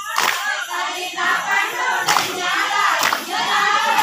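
A group of voices singing together, cut by sharp rhythmic hand claps about once a second.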